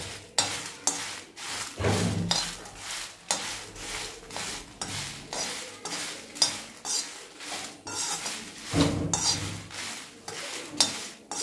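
A metal spoon stirring and scraping dried red chillies around a black wok, in quick repeated strokes of about two or three a second, as the chillies fry in a little oil.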